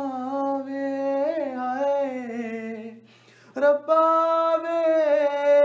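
A man singing a Punjabi song unaccompanied, drawing out long held notes with small ornamental turns. A short breath comes about three seconds in, then another long held note.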